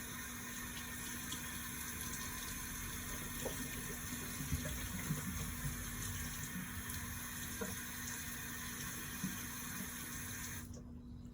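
Steady rush of running water, as from a tap, that stops abruptly near the end, over a constant low hum.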